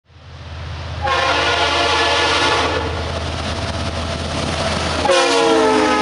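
Diesel locomotive air horn sounding a chord of several notes in two long blasts, the first about a second in and the second, louder one about five seconds in, over a low engine rumble that fades in at the start and drops away as the second blast begins.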